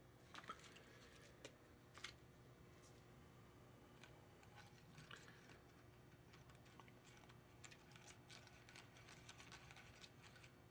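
Near silence, with a few faint light clicks and soft scraping from a small plastic stirring stick working drink powder into water in a plastic tray cell.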